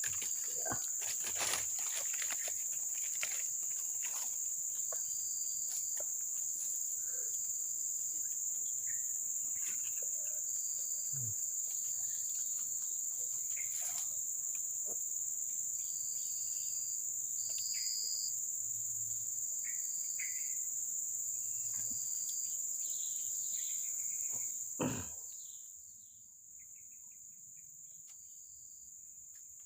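Steady high-pitched insect chorus, with faint scattered chirps and small clicks. About 25 seconds in, a sharp knock is heard and the chorus cuts off suddenly, leaving only a much quieter background.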